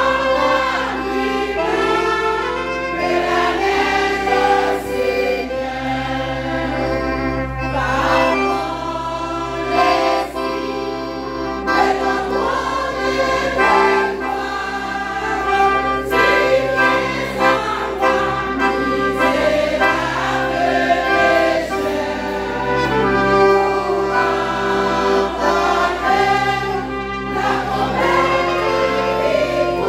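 Women's choir singing a gospel hymn in several parts, with held chords, accompanied by an accordion.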